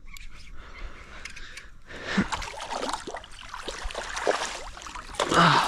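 Irregular splashing and rustling noise while a hooked sooty grunter is fought, louder for a moment near the end.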